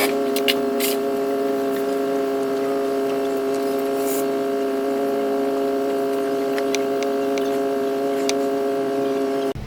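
A steady hum at one constant pitch, with a few light clicks over it, cutting off suddenly near the end.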